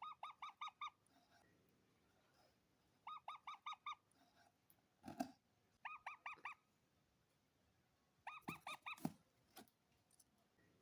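Parrot calling in short bursts of four or five quick, repeated honking notes, the bursts coming four times a few seconds apart. Two sharp knocks are heard between the bursts, about halfway through and near the end.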